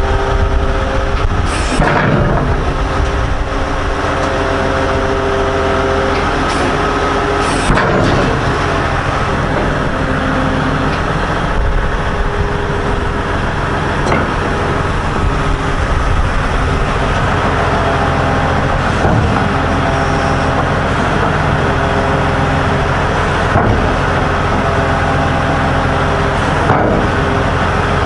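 Caterpillar 988H wheel loader's diesel engine running steadily, its note shifting a few times as the machine is worked. A few short knocks sound over it.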